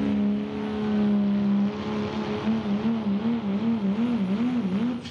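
Dodge Ram's Cummins turbo-diesel at full throttle pulling a weight-transfer sled, a high turbo whistle riding over a steady engine note. About halfway through, the engine note starts wavering quickly up and down, and the sound falls away right at the end.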